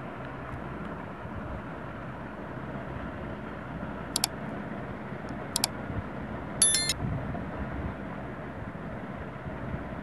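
Steady background noise with no clear source. Two short sharp ticks come around the middle, followed by a brief high squeak made of several tones.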